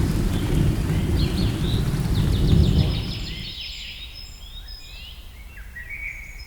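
Birds chirping and calling, with rapid repeated chirps early on and higher whistled notes later, over a loud low rumble that swells and then fades out about three and a half seconds in.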